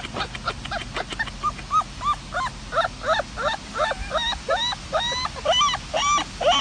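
Puppy yipping in a quick run of short, high whining yips, about three a second, climbing higher in pitch toward the end; a few sharp clicks come first.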